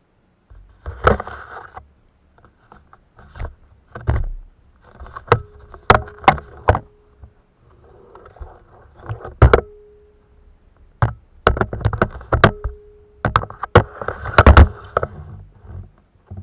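Irregular knocks, clicks and scraping of things being moved about in a plastic kayak, with a dozen or so sharp knocks and shorter rustling spells in between.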